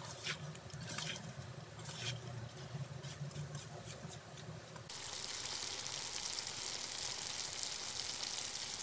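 A spatula stirs and tosses muthiya pieces in a hot kadhai, with scattered scrapes and taps against the pan. About five seconds in, a steady sizzle of frying starts under the stirring.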